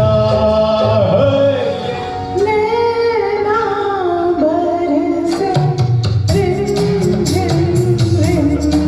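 Live performance of a Hindi film song: a singer carries a wavering melody with held notes over a band. Dense percussion comes in strongly about five seconds in.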